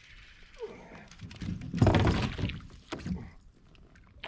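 Knocks and thuds on a plastic fishing kayak's hull, with water moving around it, while a bass is played on a spinning rod; the loudest thud comes about two seconds in, with a smaller one about a second later.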